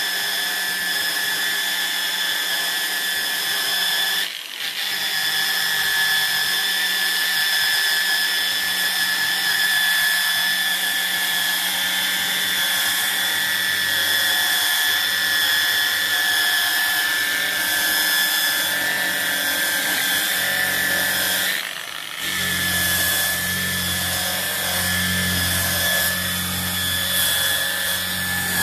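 Angle grinder running with a brush disc, scouring a wooden board to rip out the soft wood between the hard grain lines and leave a raised, aged texture. A steady high motor whine, briefly dipping twice.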